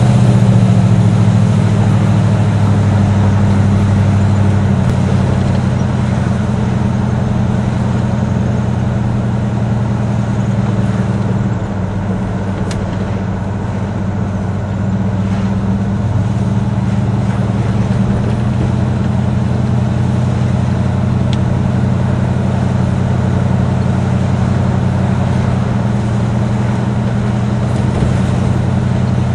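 1972 Buick Riviera's 455 cubic-inch V8 with factory dual exhausts running steadily under way, heard from inside the cabin. The engine note eases off for a few seconds about twelve seconds in, then picks back up.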